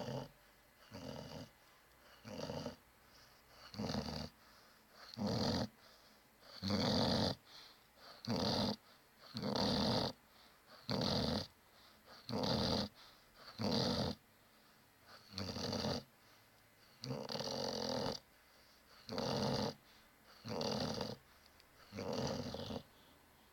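Snoring: a regular run of noisy snoring breaths, about one every second and a half, each lasting half a second to a second.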